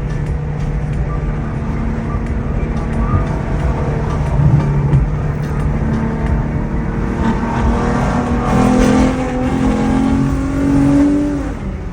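Ford Mustang GT's V8 exhaust running, its note steady at first, then climbing in pitch as the engine revs up over the last few seconds and dropping away near the end.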